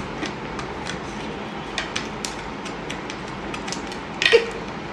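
Irregular light clicks and taps as sugar honeycomb (dalgona) candy is picked at and cracked on ceramic plates, over a steady background hiss.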